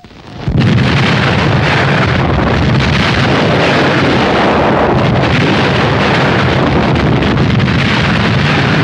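Battle sound effects of a continuous artillery bombardment: shell bursts run together into one dense din that swells in about half a second in and then holds steady and loud.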